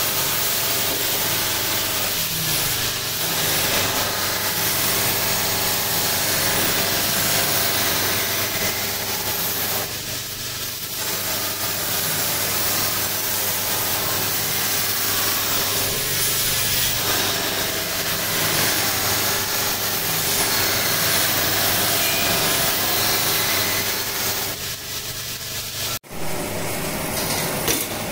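Electric buffing machine running, its polishing wheel rubbing against a stainless steel chafing dish: a steady motor hum under a loud rasping hiss. Near the end it cuts out abruptly for a moment, then carries on.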